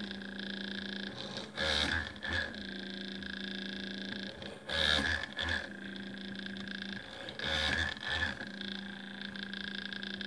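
Small DC motor of a homemade PCB drill press idling with a steady hum. About three times its speed rises as the 0.8 mm bit is pressed into the FR-4 board to drill a hole: the speed controller revs the motor up under load and lets it drop back to idle between holes.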